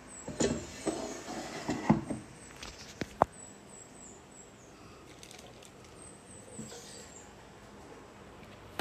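Irregular knocks, clicks and light rattles from objects being handled during the first two seconds. Two sharp clicks follow about three seconds in, then a faint steady background, and one more knock at the very end.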